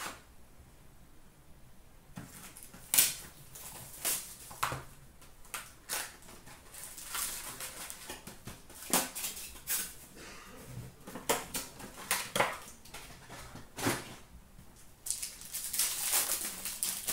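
A box of hockey cards and its packs being torn open by hand: a series of short, sharp rips and crackles of cardboard and pack wrappers, with a longer stretch of crinkling near the end as the cards are handled.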